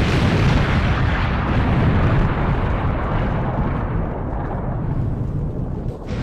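A loud, continuous rumbling roar that sounds like an explosion. It eases slightly over its length and dips briefly near the end before carrying on.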